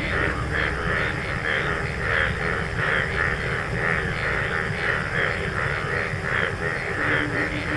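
Steady outdoor background noise: a high, pulsing chorus at about three pulses a second over a low rumble.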